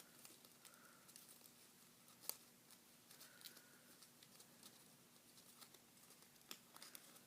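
Very faint handling of folded paper: scattered small ticks and light rustles, with one sharper tick about two seconds in, over a faint steady hum.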